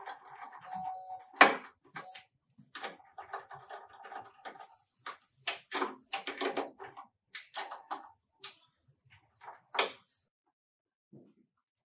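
Irregular series of knocks, clicks and short rattles. A sharp, loud knock comes about one and a half seconds in and another near ten seconds.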